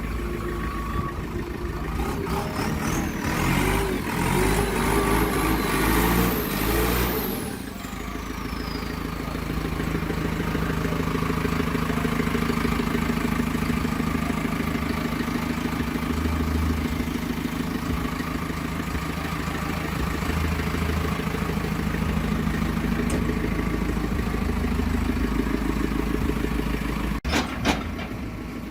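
JCB 3CX backhoe loader's diesel engine running. For the first few seconds it is revved, louder, with a high whine that climbs and then falls away, and then it settles to a steady idle. A couple of sharp knocks come near the end.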